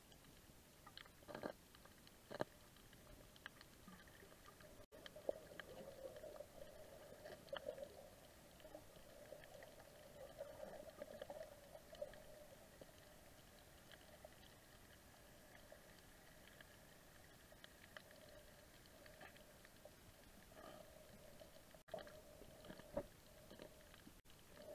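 Faint, muffled underwater reef ambience: a low steady hum with scattered sharp clicks and taps. The hum grows louder for several seconds from about five seconds in.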